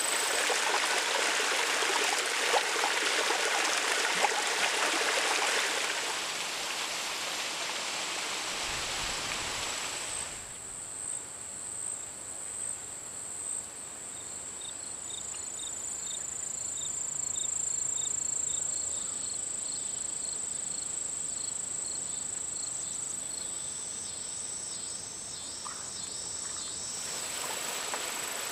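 Insects calling: a steady high buzz throughout, over a rushing hiss for about the first ten seconds. After that it is quieter, with a short chirp repeating about twice a second.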